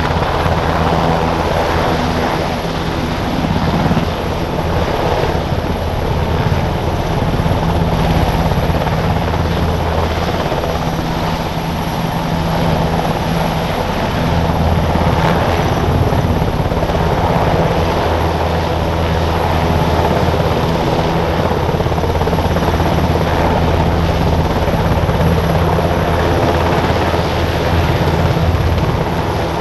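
Two NH90 tactical transport helicopters hovering and flying low at close range: loud, steady rotor and engine noise with a deep, even rotor beat.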